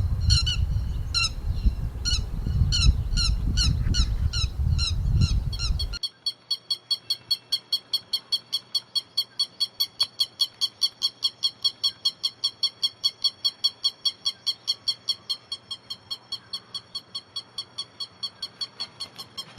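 Lapwing calling in short, sharp repeated notes. For the first few seconds they come about two to three a second over a low wind rumble. Then, after an abrupt change in the recording, they run as a fast, even series of about five calls a second.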